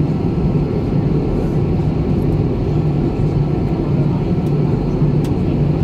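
Steady cabin noise of an Airbus A320 taxiing after landing, heard inside the cabin over the wing: jet engines at idle with an even, low rumble and hum.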